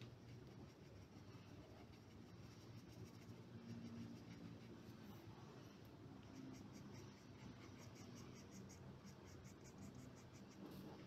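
Faint paintbrush strokes brushing paint onto paper, turning into a quick run of short repeated scratchy strokes about halfway through, over a low steady hum.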